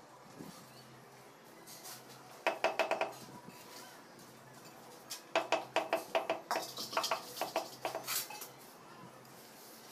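Three quick runs of hard, ringing taps on ceramic wall tiles as they are knocked into their mortar bed, the longest about a second and a half.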